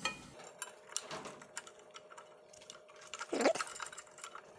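Light scattered metal clicks and ticks of an Allen key working the small screws on a sliding table's support foot.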